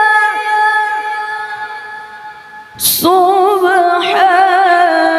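A woman's voice reciting the Quran in melodic tilawah style, holding a long note that slowly fades. About three seconds in comes a sharp intake of breath, then the voice resumes with a wavering, ornamented melody.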